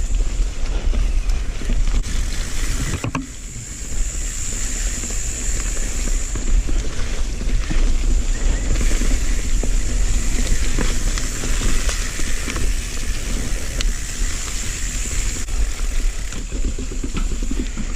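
Mountain bike being ridden over a rough, wet rainforest trail: tyres rumbling and the bike rattling over roots and rocks, with wind buffeting the camera's microphone and a steady high hiss over it all.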